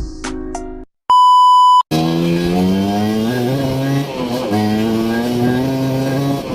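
The last plucked notes of music, a short gap, then a loud steady electronic beep lasting under a second. It is followed by a continuous droning pitched sound that rises and falls in pitch.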